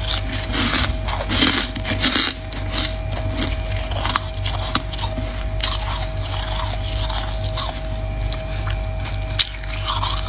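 Freezer frost being bitten and chewed, with dense crunching for the first two seconds or so, then sparser crackles and crunches, over a steady low hum.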